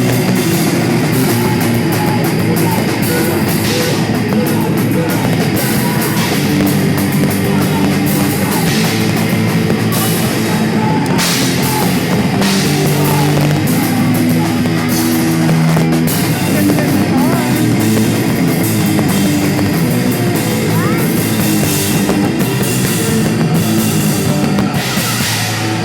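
A live heavy metal band playing loud: distorted electric guitars over a drum kit with frequent crashing cymbals, with no break.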